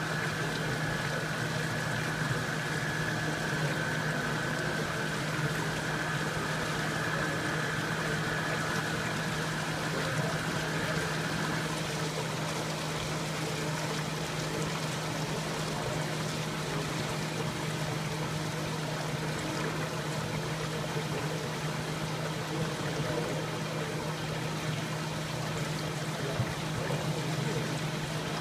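Water-treatment equipment running steadily in a shop: a constant low hum under a rushing, flowing-water noise. A faint high whine stops about twelve seconds in.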